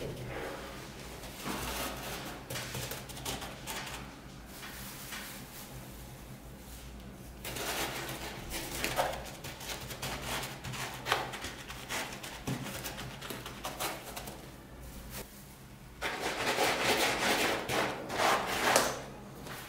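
Hands pressing and rubbing loose coconut fibre onto a foam surface, giving scratchy rustling in irregular bursts, the longest and loudest near the end.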